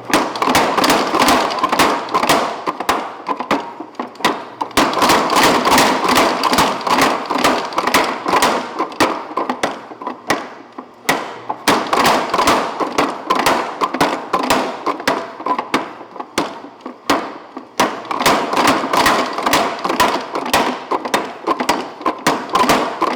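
Little Giant 250-lb mechanical power hammer pounding hot steel bar down to square, rapid repeated blows in several runs separated by short pauses.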